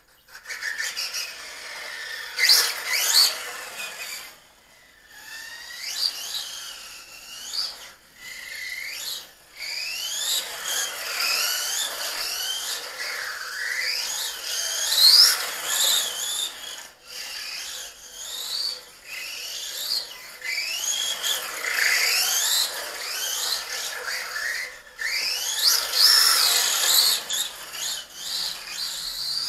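Small brushless RC motor (a Racerstar 2845 5900kv on 2S LiPo) in a short course truck, whining up and down in pitch over and over as the throttle is worked. The whine breaks off briefly a few times when the throttle is let off.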